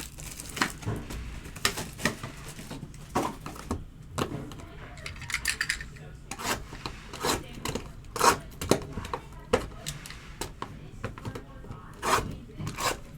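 Trading-card packs and cards being handled on a table: irregular rustles, slides and light clicks with no steady rhythm.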